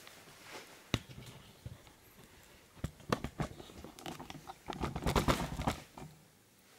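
Handling and movement noise in a small room: scattered clicks and knocks, a sharp one about a second in, a group around three seconds and a dense cluster around five seconds.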